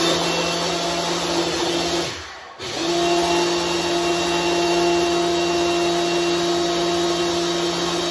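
Ninja single-serve blender motor running with a steady hum, chopping toffee chips into a coquito drink. It cuts out for about half a second around two seconds in, then starts again and runs steadily.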